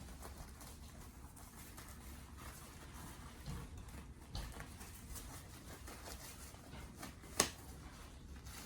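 Faint rustling and handling noises, with a couple of soft knocks and one sharp click about seven seconds in.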